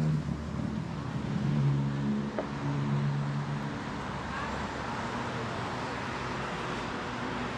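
City road traffic: a motor vehicle's engine running with a steady low hum for the first few seconds, then an even wash of traffic noise.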